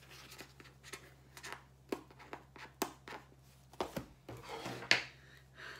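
Scattered light clicks, taps and rustling from hands handling a small cardboard kit box, with a longer rustle about four to five seconds in.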